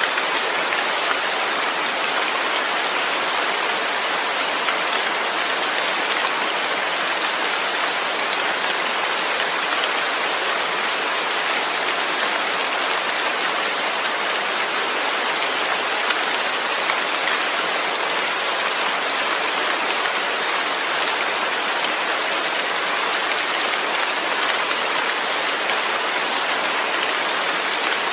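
Steady rain falling, an even hiss of many drops that neither builds nor eases.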